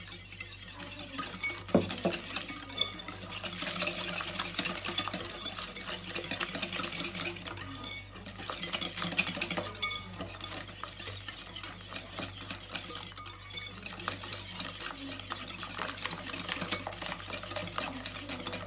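Wire balloon whisk beating eggs and sugar in a ceramic bowl: a fast, steady rattle and scrape of the wires against the bowl, easing off briefly twice about halfway through.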